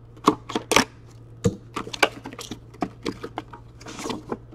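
Cardboard trading-card box being slit open with a small metal tool and pulled open by hand: irregular sharp clicks and crackles.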